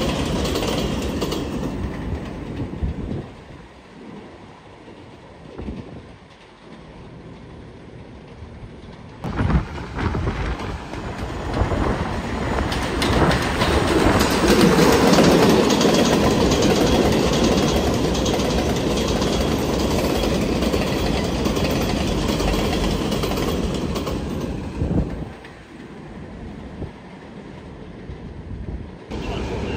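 R188 subway trains on an elevated steel line. One train pulls away at first, then after a quieter gap a second train runs past with a loud rumble and a run of clacks from its wheels, loudest about halfway. It fades out about 25 seconds in, and noise starts rising again at the very end.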